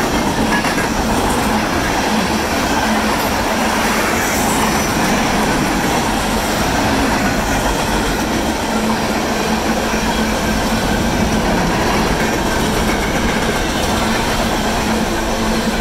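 Cars of a Norfolk Southern manifest freight train rolling past at close range: a loud, steady rumble and rattle of steel wheels on rail, with a steady low hum running under it.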